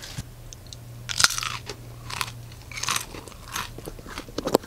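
A person biting and chewing crunchy peanut butter filled pretzels: a string of irregular crunches, the sharpest a little over a second in.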